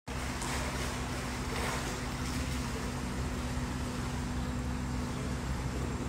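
Water splashing and lapping as a swimmer moves through a pool, with a few louder splashes in the first couple of seconds, over a steady low hum.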